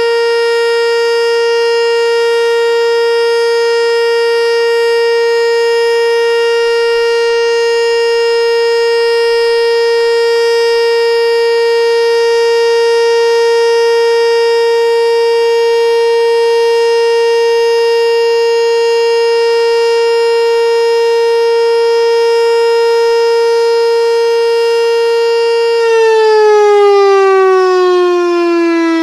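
ASC T-112 electronic outdoor warning siren sounding its steady Alert tone, one held pitch with many overtones, during its monthly test. About 26 seconds in, the tone begins to fall in pitch as the signal winds down.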